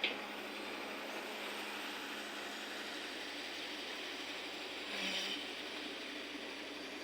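Excavator engine running steadily as a continuous hum, with a short sharp sound at the start and a brief louder swell about five seconds in.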